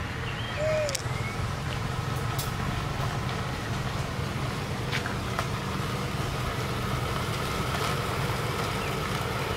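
Steady low rumble of an engine running, with a short chirp about a second in and a few faint clicks.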